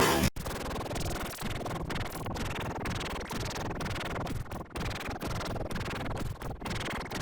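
Harsh, static-like noise with several brief dropouts and no clear tune: a heavily distorted sound-effect variation of a song.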